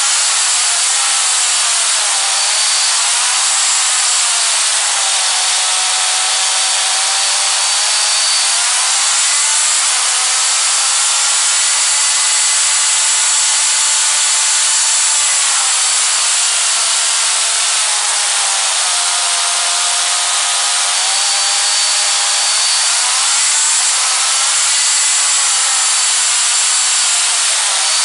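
Small gas-powered engine of a CEN RC truck running at high revs, heard close up from on board the truck. Its buzz rises and falls again and again as the throttle is worked.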